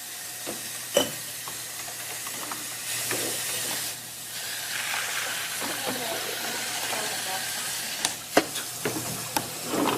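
Kitchen noise: a steady hiss that swells about three seconds in, with a few sharp clinks of kitchenware.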